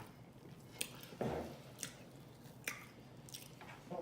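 Close-up wet mouth sounds of someone eating fried chicken dipped in cheese sauce: quiet chewing broken by four sharp lip smacks, about one a second.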